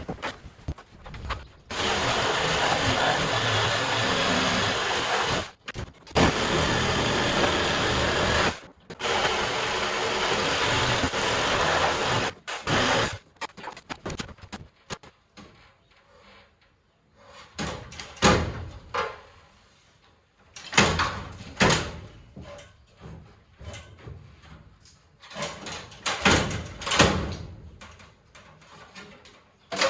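Power tool running at full speed in three long stretches, then a run of irregular sharp knocks and bangs.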